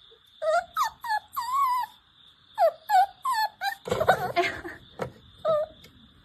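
A puppy whining and whimpering in a run of short, bending high cries, with a louder, rougher cry about four seconds in.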